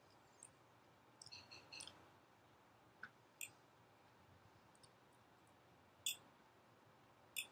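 Near silence broken by a few small clicks from eating: a metal fork tapping and scraping on a plate, with a short run of clicks about a second in and the two loudest near the end.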